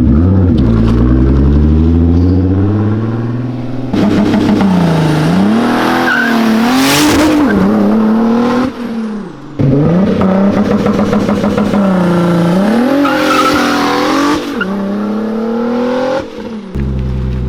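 Turbocharged VR6 engine of a MK4 GTI, fitted with a Pulsar G30-900 turbo, accelerating hard through the gears. The engine note rises in pitch with each pull, then drops and dips briefly at each of several gear changes.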